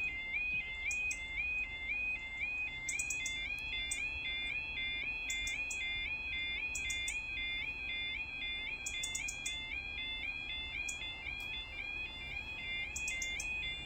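Automatic half barrier level crossing's yodel alarm sounding continuously, a two-tone electronic warble at about two cycles a second. It warns that the barriers are down and a train is approaching.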